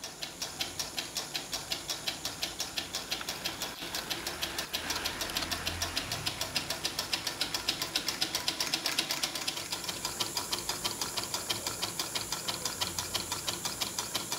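Small homemade Stirling engine running, its glass-tube piston and wire crank clicking in a steady rhythm at about five to six clicks a second, over a steady high hiss.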